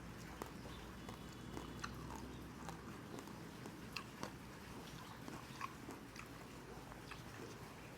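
A person chewing and biting crispy pata, deep-fried pork knuckle, the crisp skin giving irregular sharp crunches between the chewing.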